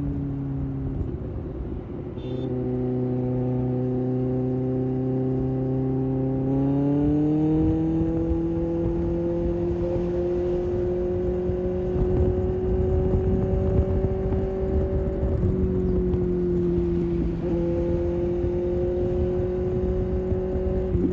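Kawasaki ZX-6R's inline-four engine running under way. The engine note dips near the start, rises in pitch about seven seconds in as the bike accelerates, then holds steady with two brief dips in the second half.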